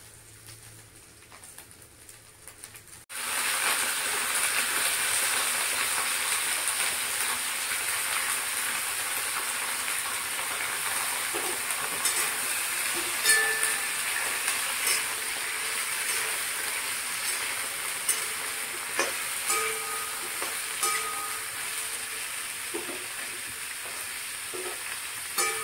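Food frying in hot oil in a pan: a steady sizzle that starts suddenly about three seconds in, with scattered clicks of a spoon stirring.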